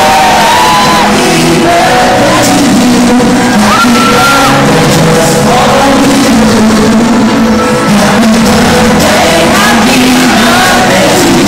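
Loud music with singing, with voices shouting over it.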